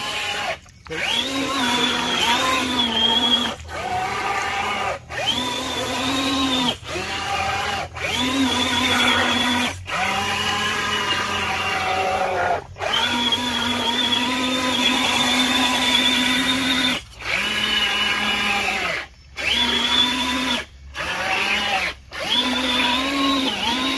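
1/10-scale RC crawler's electric motor and gearbox whining in repeated throttle bursts of one to four seconds, with short pauses between them, as the truck pulls through mud and water.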